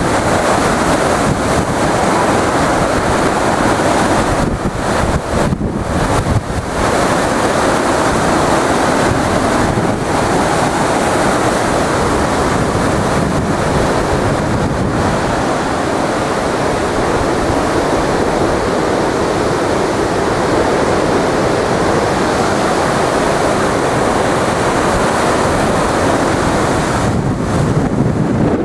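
Storm-force wind rushing through tall trees and buffeting the microphone in a continuous heavy roar of gusts, with a brief dip about five to six seconds in.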